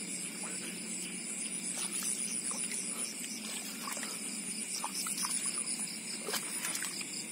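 Night chorus of insects and frogs: a steady, high-pitched pulsing chirr, with a few faint ticks and taps scattered through it.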